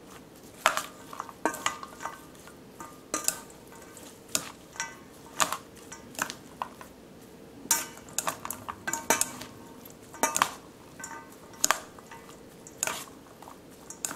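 Chopsticks and a metal spoon tossing salad in a stainless steel bowl: irregular clinks against the bowl, about a dozen, several ringing briefly.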